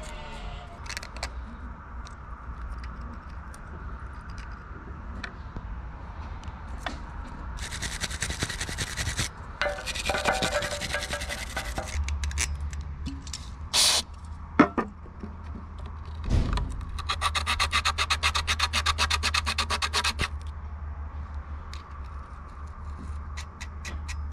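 Hand-work noises: scraping and rubbing in bursts, then a fast run of regular scrubbing strokes for about three seconds, with a low steady hum from about halfway.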